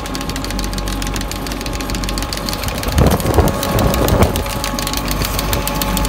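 Compact tractor engine running steadily while pulling a planter, with a fast clatter of ticks throughout and a few louder knocks about three to four seconds in.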